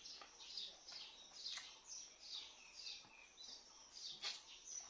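Birds chirping faintly in quick, repeated short downward-sliding notes, with two sharp clicks, one about one and a half seconds in and one near the end.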